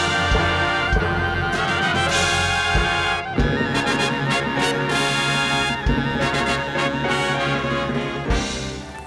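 Orchestral show music with brass playing sustained chords and a few drum hits.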